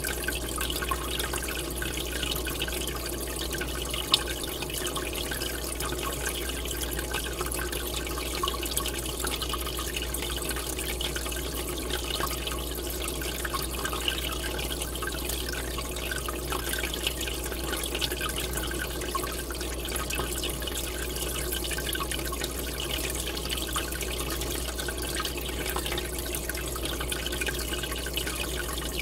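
Aquarium air bubbler: a steady stream of bubbles rising and breaking at the water surface, over a low steady hum, with one sharp click about four seconds in.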